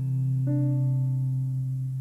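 Background music of slow, held notes over a steady low tone, with a new note coming in about half a second in.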